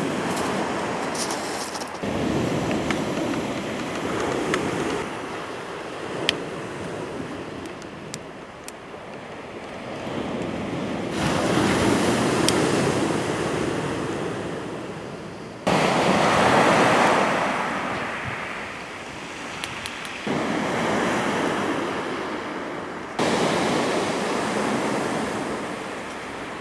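Sea surf breaking and washing on a shingle beach, with wind on the microphone. The wash swells and fades, and its loudness jumps suddenly several times from one stretch to the next.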